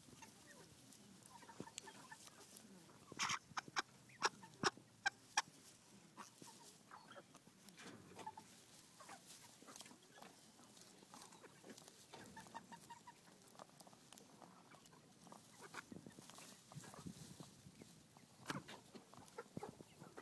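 Meat chickens clucking quietly while they peck at and eat fresh pasture grass. A quick run of about half a dozen sharp clicks comes a few seconds in.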